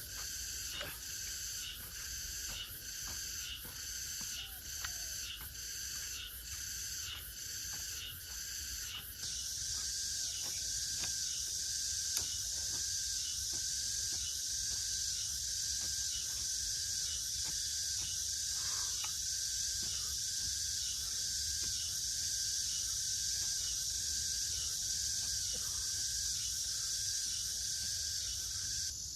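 Insect chorus buzzing shrilly, pulsing at about three beats every two seconds, then about nine seconds in becoming a continuous, slightly louder drone. Faint scattered knocks sound under it.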